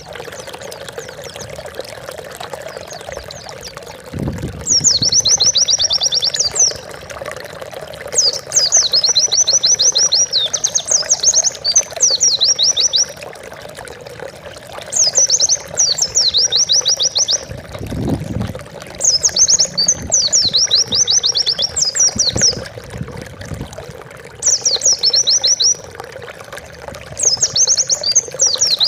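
White-eye (pleci) singing in bursts of fast, high twittering trills, six song phrases of one to five seconds with short pauses between, over a steady water-like rushing background.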